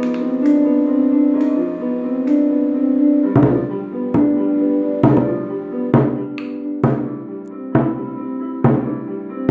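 Djembe beaten with rubber-ball mallets, lightly at first, then in a steady beat a little under once a second from about three seconds in. Melodic keyboard music with long held notes plays along underneath.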